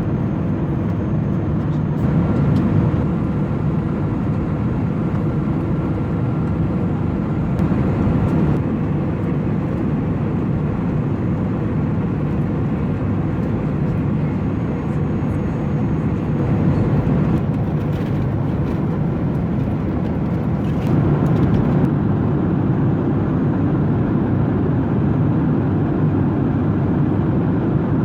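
Steady cabin noise of a Boeing 737 in flight, heard inside the cabin: the even, low-pitched hum of the engines and rushing air.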